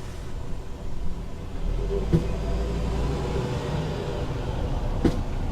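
Parking-lot ambience in which a car runs close by, its low engine rumble swelling about one and a half seconds in and easing off about halfway through. Two sharp knocks sound about three seconds apart.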